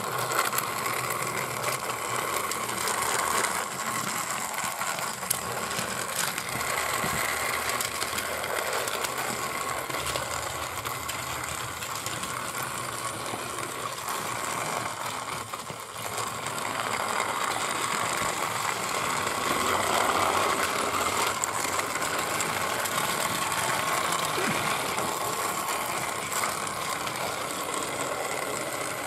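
Battery-powered Trackmaster toy engine's small electric motor and gears whirring steadily as it runs along plastic Tomy track, a bit slow because Trackmaster trains aren't designed for that track. The whirr gets louder a little past halfway.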